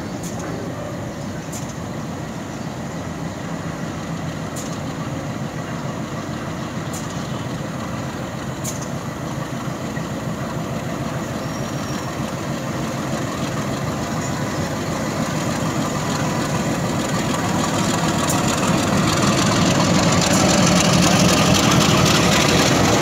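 Diesel-electric locomotive's engine running steadily as it slowly propels tank wagons while shunting. It grows louder from about halfway through and is loudest near the end, as the locomotive passes close by.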